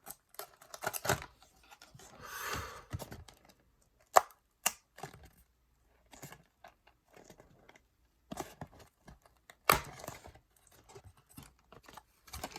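Trading-card booster box packaging being torn open and handled: a longer tearing rasp about two seconds in, among scattered sharp clicks and rustles.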